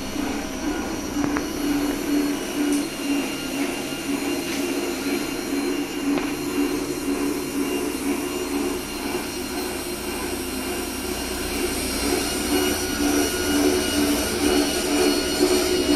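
Continuous band sealer running: its conveyor and band drive motor and cooling fan make a steady hum with a slightly pulsing tone.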